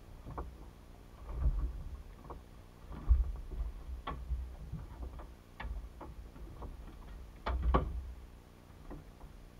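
Irregular clicks and knocks from fishing tackle, a rod and spinning reel, being handled aboard a small boat, with a few low thumps; the loudest is a quick pair of clicks with a thump near the end.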